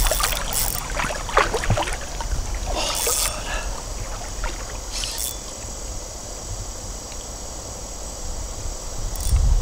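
River water flowing and sloshing around a wading angler's legs, under a steady low rumble, with a few brief hissing bursts about three and five seconds in.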